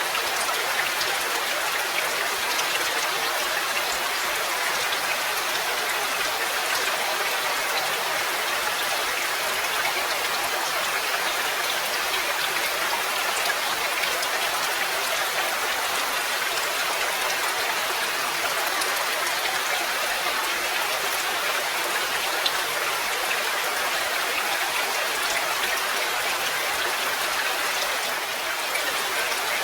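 Steady, even rainfall, with individual drops flecking the dense hiss of the rain.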